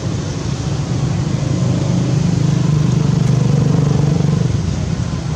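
A motor vehicle's engine running, a low hum that grows louder about two seconds in and eases off near the end.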